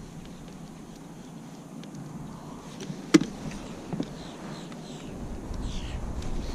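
Quiet background with a single sharp click about three seconds in and a softer click about a second later, followed by a few faint high chirps.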